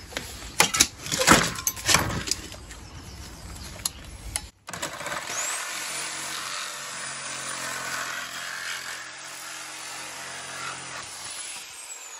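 A few sharp knocks and clatter in the first two seconds, then, after a brief break about four and a half seconds in, a corded Bosch reciprocating saw runs steadily, its blade cutting through a hollow white uPVC window-frame profile.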